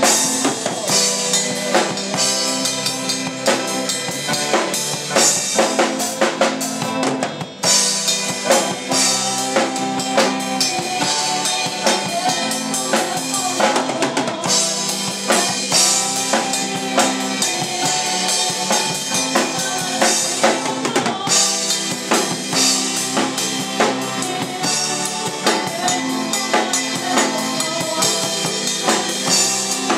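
A band's song with a full drum kit keeping the beat, with bass drum, snare and rimshots. There is a brief break about seven and a half seconds in.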